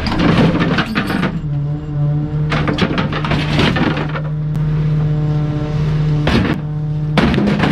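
Garbage truck's compactor crushing bulky items: a steady engine-and-hydraulic drone, broken several times by loud cracking and crashing as the items break.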